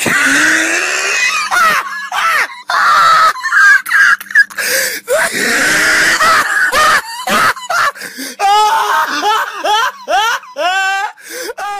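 People's voices laughing and shrieking, with no clear words. From about two-thirds of the way in, the cries waver quickly up and down in pitch.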